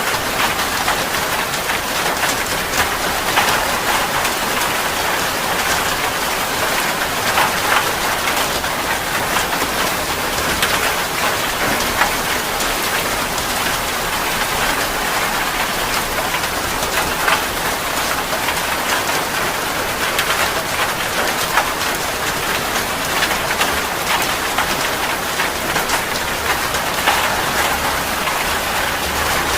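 Heavy rain falling steadily, with many individual drops spattering on a surface.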